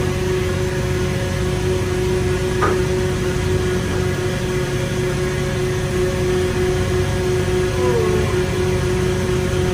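Machinery running with a steady drone: a low rumble under two constant humming tones.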